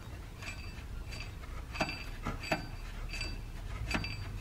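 Light metallic ticks, evenly spaced about every 0.7 s (six in all), each with a faint ring, over a low steady hum.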